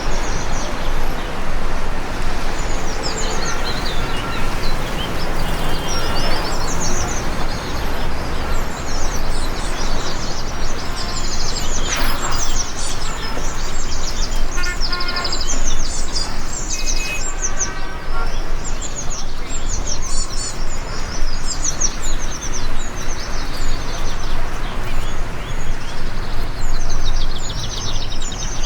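Steady hiss of rain with many small birds chirping and twittering over it.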